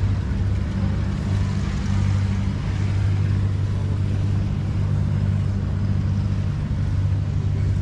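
An engine running steadily at constant speed: a low, even hum that does not change.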